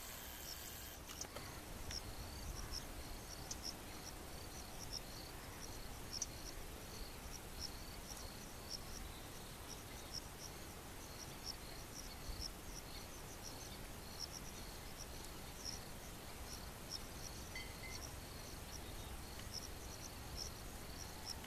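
Insects, crickets by the sound of it, chirping steadily in short high chirps, a couple a second, over a faint low rumble.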